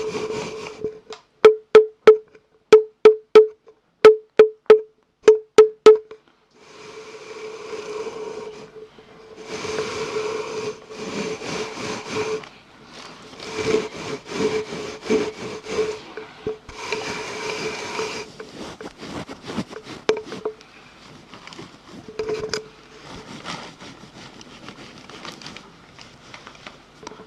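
Close-miked ASMR mouth sounds. About a dozen sharp clicks come in quick pairs and singles over the first six seconds, then irregular bursts of rasping noise follow for the rest of the stretch.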